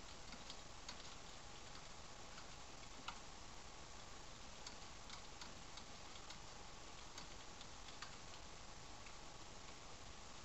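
Faint, irregularly spaced clicks over a steady background hiss, the sharpest one about three seconds in.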